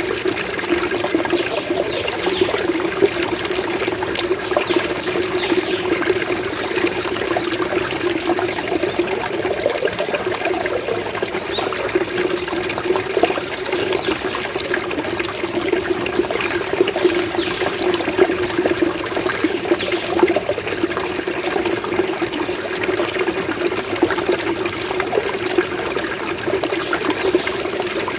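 Small flow of running water gurgling and burbling steadily, without pause.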